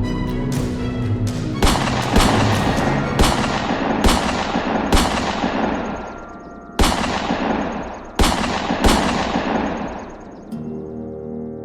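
Video-game-style gunshot sound effects laid over background music: a quick run of rapid shots, then about eight single heavy shots at uneven intervals, each trailing off in a long echo.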